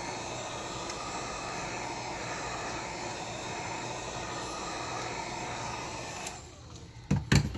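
Heat gun blowing steadily while heating the edges of the tablet's digitizer glass so it can be lifted off. The blowing drops away about six seconds in, and a few sharp knocks follow near the end.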